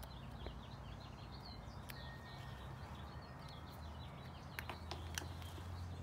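Faint outdoor ambience: small birds chirping over a low steady hum, with a few soft clicks.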